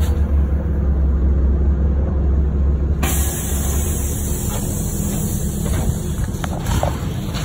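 A NefAZ-5299 city bus running, heard from inside the cabin: a heavy low rumble of engine and road. About three seconds in, a steady high hiss sets in suddenly as the rumble eases.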